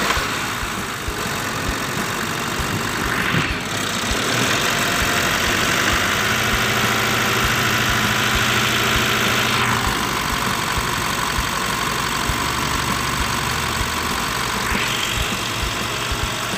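Mitsubishi Strada Triton four-cylinder turbodiesel running steadily at idle, just restarted after its fuel system was bled following a fuel filter change. The engine note lifts about three seconds in, settles back near ten seconds, and lifts again near the end.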